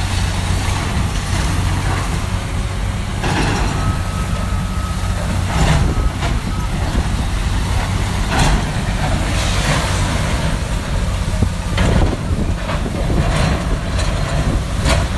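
Demolition machinery's heavy diesel engine running steadily, with several sudden crashes and scrapes of building material breaking.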